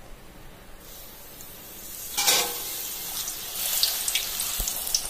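A thin rolled round of maida dough goes into hot oil in a kadai: about two seconds in the oil bursts into a loud sizzle, then keeps sizzling and crackling as the puri deep-fries.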